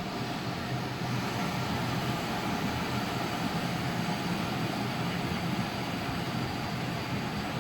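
Steady machine noise: a low, even hum under a constant hiss.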